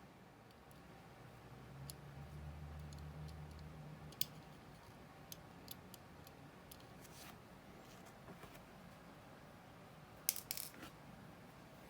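Small metal watch parts and hand tools clicking and tapping on a workbench during servicing of a Vostok Amphibia watch: scattered light clicks, with a short cluster near the end. A faint low hum runs for about two seconds in the first half.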